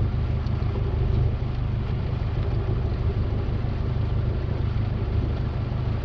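Wooden fishing boat's engine running steadily at low revs, a constant low rumble.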